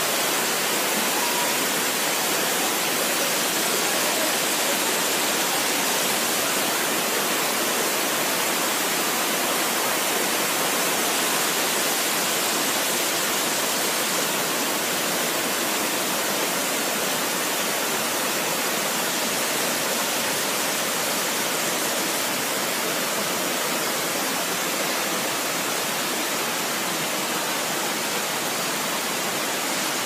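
Water of a tiered waterfall cascading over rock: a steady rushing hiss.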